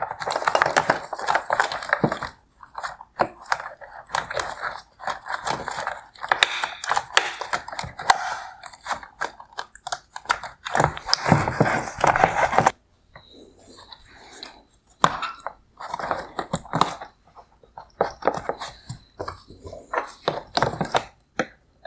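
Wire harness being pulled free of the plastic retaining clips inside a car headlight housing: a dense run of rustling, scraping and plastic clicks, thinning to scattered clicks about halfway through.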